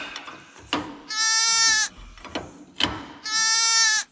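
Goat bleating twice, two long even-pitched bleats about two seconds apart, each coming as the engine is turned over by hand with a wrench; sharp metal clicks from the wrench fall between them.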